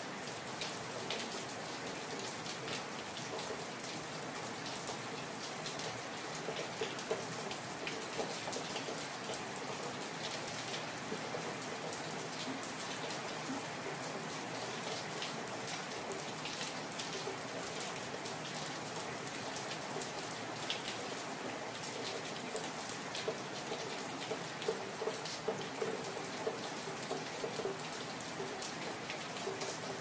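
Steady rain falling on an empty street: a constant hiss with many sharp individual drops and drips ticking on hard surfaces. The drops come more often in the later part.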